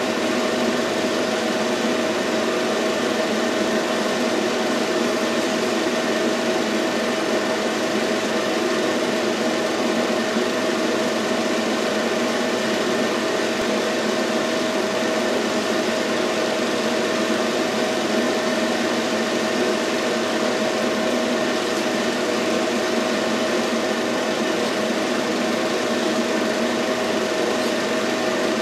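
Film projector running: a steady mechanical whir with a constant hum tone, unchanging throughout, the sound of silent home-movie film being played back.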